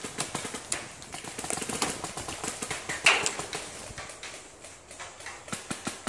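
Paintball markers firing in irregular runs of sharp pops, with one louder shot about three seconds in.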